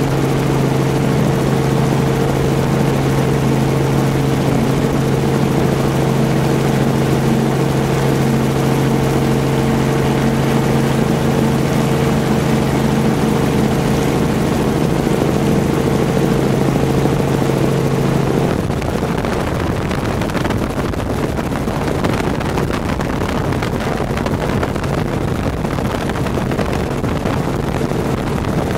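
Steady drone of an aircraft engine and propeller. A humming tone runs until about two-thirds of the way through, then gives way to a rougher rushing noise.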